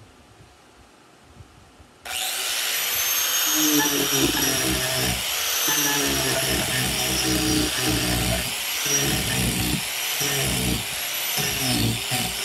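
DeWalt angle grinder with a wood-carving disc switched on about two seconds in, running with a steady high whine and carving into an oak post, the cut grinding unevenly as the disc bites and lets off.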